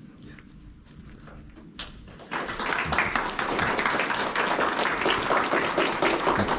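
Applause: many hands clapping, starting suddenly about two seconds in and keeping up steadily.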